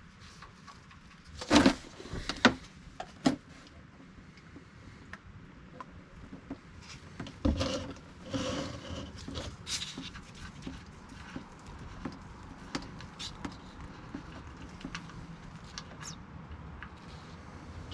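Handling noises during a differential oil drain: three sharp clicks and knocks within the first few seconds, a knock and a rustle around eight seconds in, and another click about ten seconds in, over a faint steady background.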